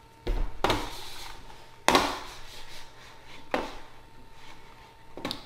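Scattered clicks and knocks from a computer being worked at a desk, about five in all, the loudest about two seconds in.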